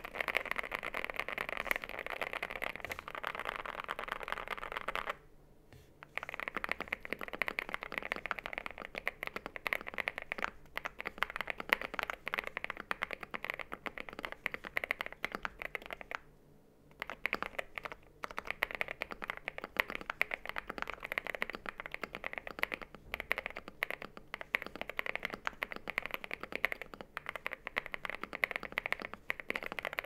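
Fast, continuous typing on a Zoom 75 mechanical keyboard with WS Morandi linear switches and PBT keycaps: a dense patter of keystrokes, broken by two brief pauses about five seconds in and about seventeen seconds in.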